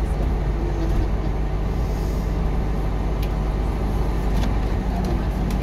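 Steady engine hum and rolling noise heard from inside a moving airport apron bus.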